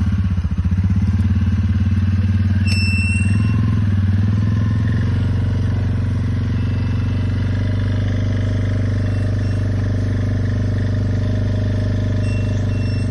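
Four-wheeler (ATV) engine running close by, throbbing unevenly for the first few seconds and then settling to a steady idle. A short high squeak about three seconds in.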